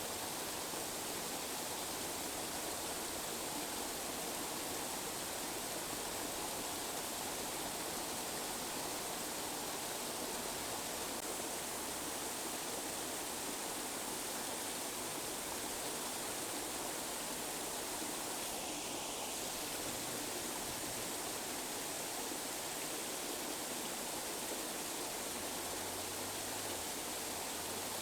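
Steady tinnitus-masking noise: an even, unchanging hiss spread from low to very high pitches, with no rhythm or breaks.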